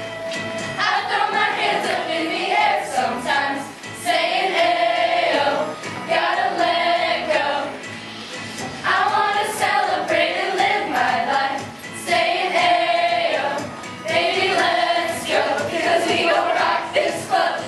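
Chorus of young voices singing in unison a pop-song medley over musical accompaniment, in phrases of a couple of seconds with short dips between them.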